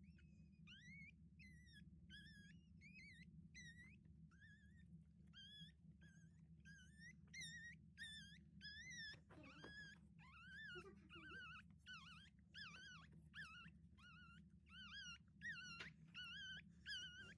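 Newborn puppy squeaking and crying over and over, faint: short high squeaks about two a second, each rising then dropping in pitch.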